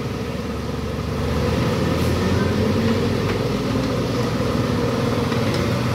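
An engine running steadily, a continuous low drone that gets a little louder about a second in.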